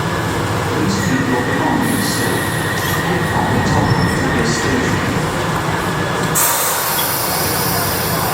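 London Underground 1973 Stock tube train moving through the platform, with a steady low rumble and a thin, steady high squeal from the wheels. About six seconds in, a loud high hiss starts.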